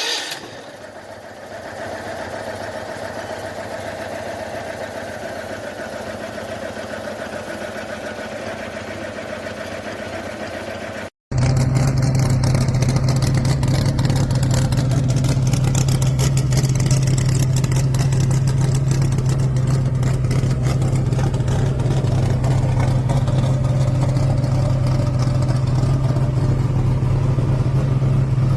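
A car engine catches with a short loud burst and settles to a steady idle. About eleven seconds in, the sound cuts out briefly, and a second, louder car engine idles steadily with a low drone for the rest of the time.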